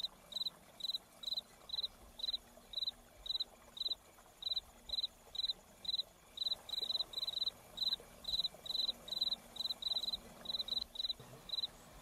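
Cricket chirping: short, high-pitched trilled chirps repeated about two or three times a second, now and then in quick clusters.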